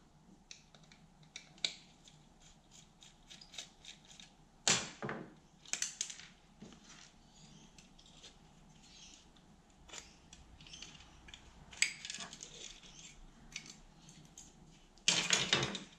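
Small clicks, scrapes and knocks of a screwdriver and plastic parts being handled as an electric flyswatter's battery handle is unscrewed and its casing pulled apart, with a few louder knocks in the second half.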